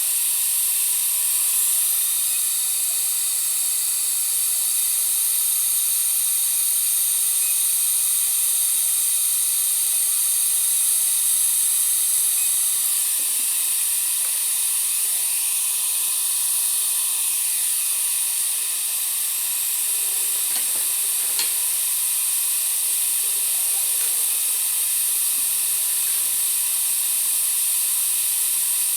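Dental equipment running: a steady high-pitched hiss with several whining tones, shifting a little in pitch around the middle, with a few faint clicks near the end.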